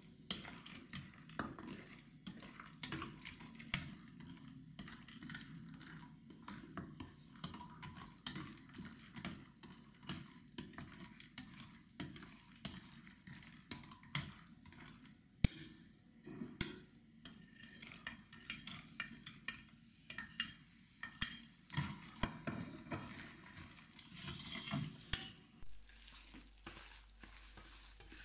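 Walnuts, peanuts and slivered almonds being stirred in a stainless steel frying pan with a plastic spatula: irregular scraping of the spatula on the pan and nuts clattering, with one sharp click about halfway. Near the end it changes to semolina and butter being stirred in the pan.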